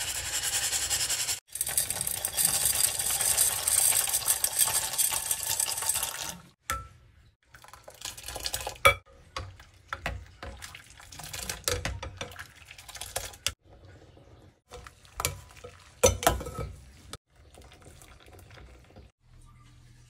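Steady rush of water in a glass cooking pot for about six seconds, then a plastic spoon stirring macaroni in the pot, with scattered scrapes and knocks against the glass.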